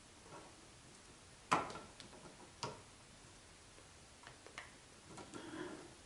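Pliers snipping electrical wires at a wall switch box: a few sharp clicks, the loudest about one and a half seconds in and another a second later, then fainter clicks and a short rustle of wire near the end.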